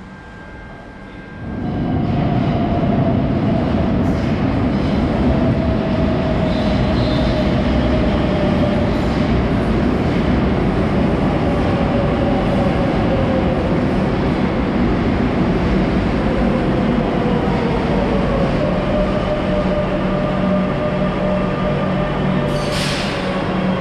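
Madrid Metro train running on its rails, loud and steady, starting suddenly about a second and a half in. A thin whine rides on the rumble and slowly falls in pitch, and there is a short hiss near the end.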